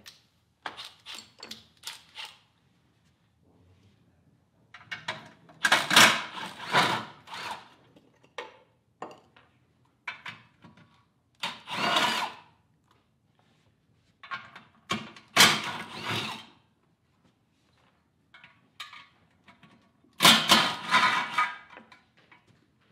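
Cordless drill-driver running in several short bursts with pauses between them, backing out the bolts of a Honda UT3 engine's flywheel cover.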